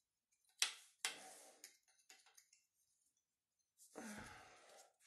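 Hands working a plastic grommet strip into a Babolat Pure Strike racket frame. There is a sharp click about half a second in, then a few softer clicks and rustles, and a longer breathy rustle near the end.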